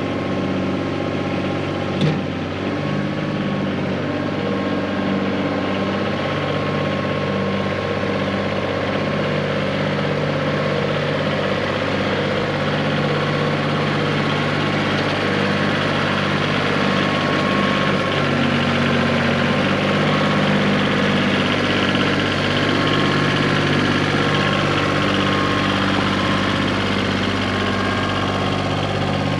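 New Holland 1720 compact tractor's three-cylinder diesel engine running steadily as the tractor drives up close and passes by. A single sharp click sounds about two seconds in.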